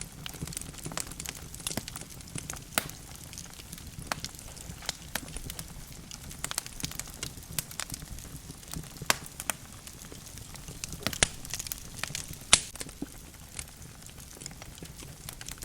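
Wood logs burning in a fireplace, crackling with irregular sharp pops over a low steady rumble of the flames; the loudest pops come about 9, 11 and 12.5 seconds in.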